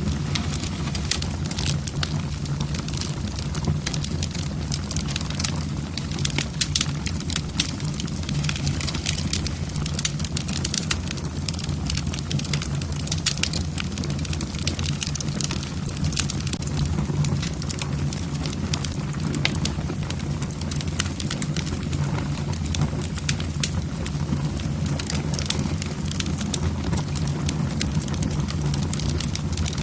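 Wood fire burning in a fireplace: logs crackling and popping many times a second over a steady low rumble of the flames.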